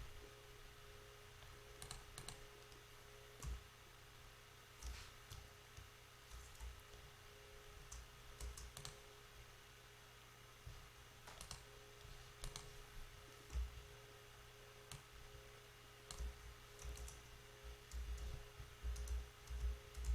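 Faint, scattered clicks of a computer mouse and keyboard, coming in small groups and more often near the end, over a low steady hum.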